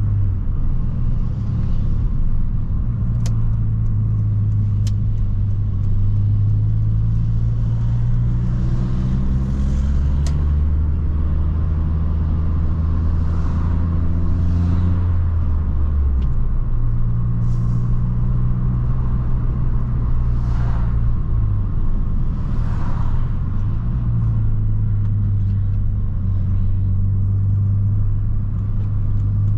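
Opel Astra G Bertone's 2.0 turbo four-cylinder engine running under way. Its note climbs slowly through the first half, drops off suddenly just past the middle, then holds steady with two brief dips in the last third.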